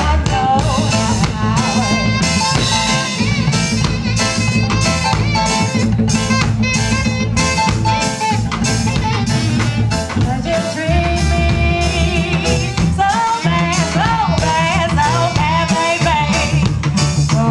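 Live reggae band playing at full volume, with a steady drum-kit beat and a woman singing lead over it.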